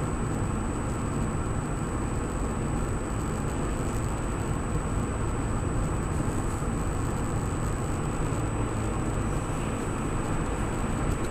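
Car interior road and engine noise while driving at a steady speed: an even low rumble of tyres and engine heard from inside the cabin, with a thin steady high-pitched whine over it.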